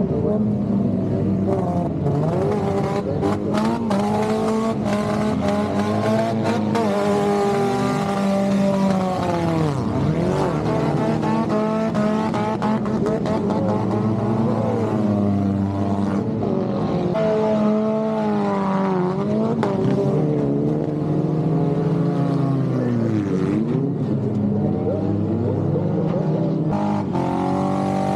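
Several speedway cars' engines running on a dirt track, their pitch rising and dipping again and again as the cars accelerate and back off, with a few short knocks among them.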